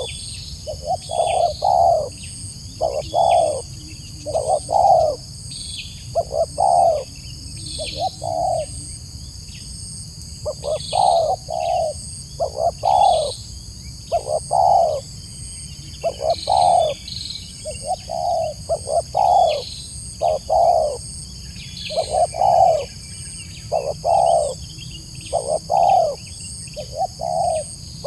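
Spotted dove (tekukur) cooing over and over in phrases of two or three coo notes, a new phrase every couple of seconds. The voice is the crisp ('mersik') type prized in song doves. Steady high-pitched tones and short chirps run faintly above it.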